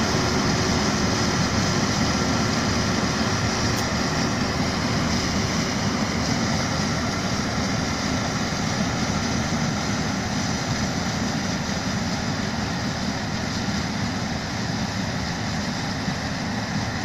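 4YZ self-propelled corn harvester running steadily: a continuous loud machine drone with a few faint, steady whining tones.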